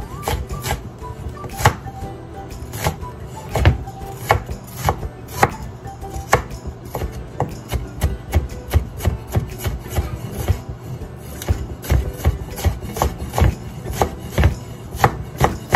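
A wide-bladed chef's knife dicing red onion on a wooden cutting board: repeated knocks of the blade through the onion into the wood, spaced out at first, then a steady run of about three chops a second in the second half.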